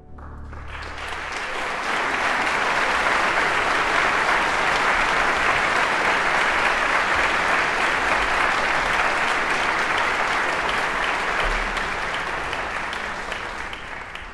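Audience applauding: the clapping swells over the first couple of seconds, holds steady, then begins to thin out near the end.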